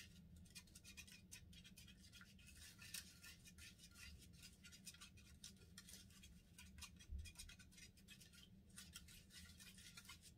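Faint, rapid scratching and clicking of a small plastic spoon stirring candy powder and water in a plastic tray of a Japanese DIY candy kit.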